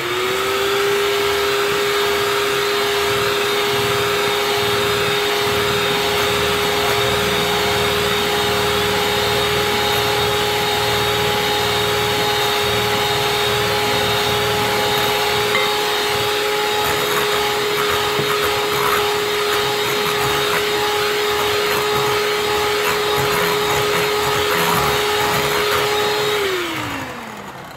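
Electric hand mixer running at a steady speed, its beaters whirring through a batter of beaten eggs and sugar. Near the end it is switched off and its whine drops in pitch and dies away.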